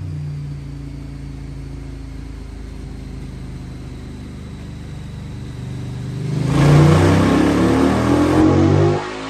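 KTM 1290 Super Duke R's V-twin with a full Akrapovic race exhaust and open DNA intake, running steadily on a dyno, then opened up about six seconds in for a loud pull with rising revs, shut off suddenly near the end.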